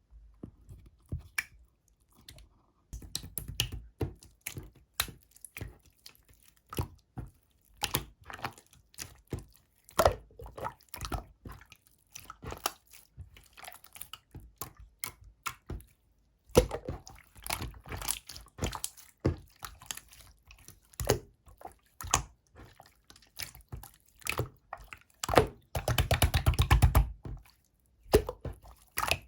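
Clear slime being squished and poked by hand: irregular sticky clicks and pops. Near the end comes a dense run of rapid crackling pops lasting about a second and a half.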